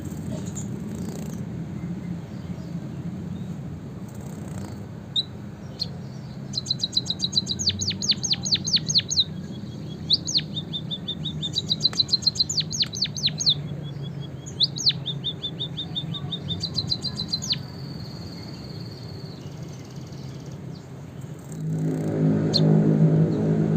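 White-headed munia singing canary-like song: repeated high phrases of rapid trills and quick downward-sweeping notes, with short gaps between phrases. Near the end a louder low hum starts under the song.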